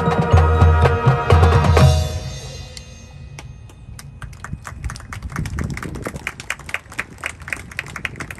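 High school marching band playing a loud held chord in the winds over bass drum hits, which cuts off about two seconds in and rings away. Then a quieter percussion pattern of steady sharp ticks, like wood block or stick clicks, keeps time for the rest.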